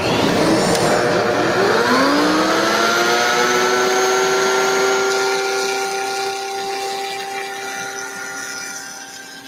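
Router in a router table switched on, its motor whine rising as it spins up over the first couple of seconds and then running at a steady high pitch while a board is fed along the fence past the jointing bit.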